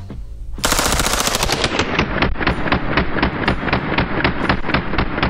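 A full-auto AK-pattern rifle with an Ultradyne Apollo Max muzzle brake firing one long burst, starting about half a second in, the shots evenly spaced.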